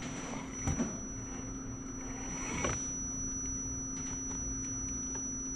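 Axial SCX10 RC crawler's electric motor and gear drivetrain whining steadily as it crawls slowly over rocks. There are short knocks, two close together about a second in and one more near three seconds, as the tyres and chassis bump the rocks.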